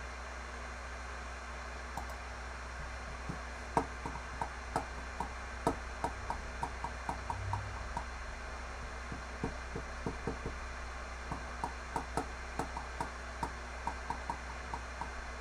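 A run of light, irregular clicks and taps, a few a second, starting about two seconds in, over a steady low electrical hum.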